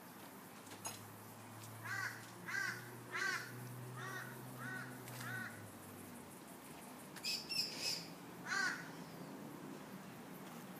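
A crow cawing: a run of six caws about two-thirds of a second apart, then a few more calls a couple of seconds later.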